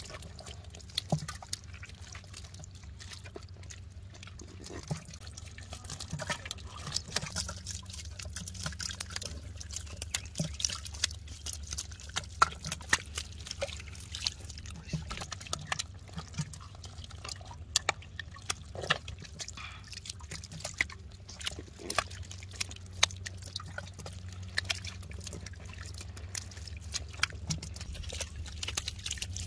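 Shallow water trickling and dripping in a muddy clay channel, with scattered small splashes and slaps as a catfish wriggles through it. A steady low hum runs underneath.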